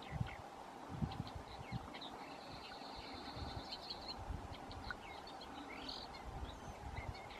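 Songbirds calling and chirping: scattered short high notes, a rapid trill about three seconds in, and a rising note near six seconds, over irregular low rumbling thumps.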